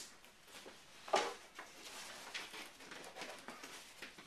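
Scattered light clicks and taps of wooden parts and tools being handled at the workbench, with one sharper knock about a second in.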